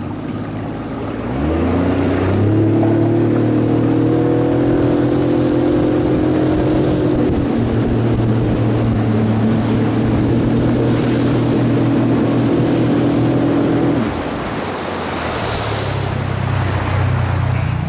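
Boat's outboard motor speeding up about a second and a half in, running at a steady speed, then throttling back a few seconds before the end.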